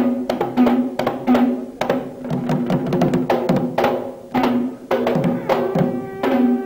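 Ceremonial drumming: quick, uneven drum strokes, several a second, with a ringing pitched drum tone. Near the end a held wind-instrument note comes in over the drums.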